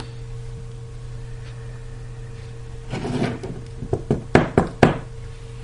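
An iPhone 4S being handled and turned over on a wooden tabletop: a short rubbing slide about three seconds in, then a quick run of sharp taps and clicks of the phone against the wood. A steady low hum runs underneath.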